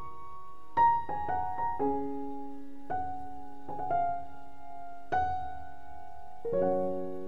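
Slow, gentle background piano music: single notes and soft chords struck every second or so and left to ring.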